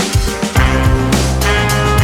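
Background music with a steady beat: drums, bass and guitar.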